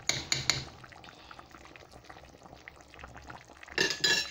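Curry simmering in a pan, bubbling softly. It opens with a quick run of taps, about eight a second, that stops after half a second, and near the end a utensil gives a brief ringing clink.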